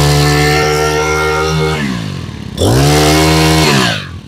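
Makita four-stroke brush-cutter engine revved high and held steady. The revs sink about two seconds in as the throttle is let go, climb again, and drop off near the end.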